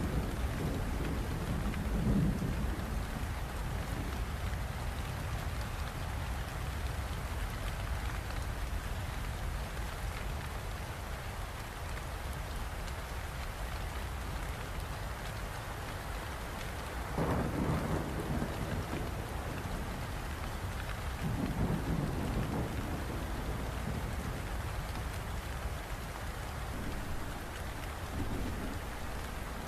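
Steady rain falling, with low rolls of thunder: one near the start, the loudest about seventeen seconds in, another around twenty-one seconds and a weaker one near the end.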